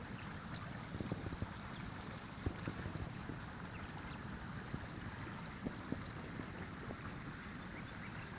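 Small brook running through brush, a steady rush of water with a low wind rumble on the microphone and a few light clicks.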